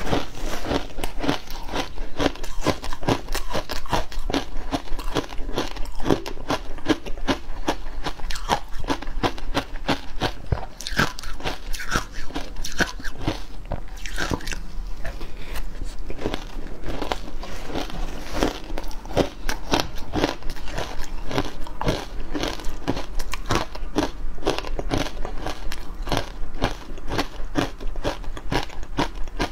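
Frozen matcha ice being bitten and chewed: a dense, continuous run of sharp crunches, several a second.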